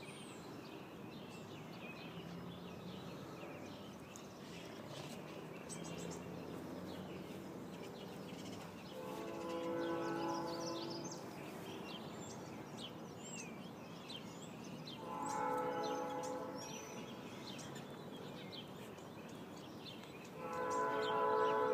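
Many small birds chirping and twittering steadily. Three times, about nine seconds in, near sixteen seconds and near the end, a louder steady pitched tone of a second or two sounds over them.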